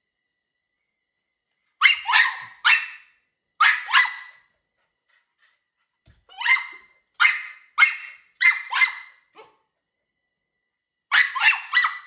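Miniature schnauzer barking loud and high-pitched at birds outside, in quick volleys of two to four barks with pauses of about a second between them, starting about two seconds in.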